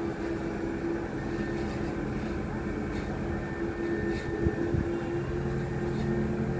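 Steady drone of heavy construction machinery engines running, with a lower hum joining a little after five seconds in and two short knocks just before it.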